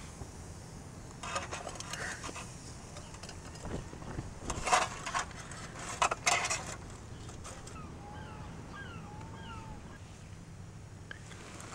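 Metal camping cook pot clattering as it is handled and set down on a small spirit burner, with a few sharp knocks, the loudest about five and six seconds in, over a steady low background. A bird chirps a few times about eight seconds in.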